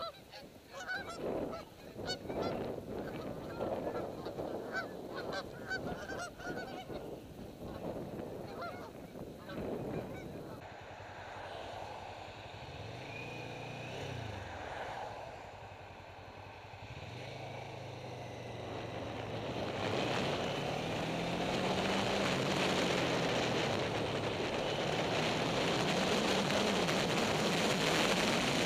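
A flock of geese honking repeatedly. About ten seconds in, this cuts to a motorcycle engine heard from the rider's helmet, its pitch rising and falling as it accelerates through the gears. Wind rushing over the microphone grows louder as the speed picks up.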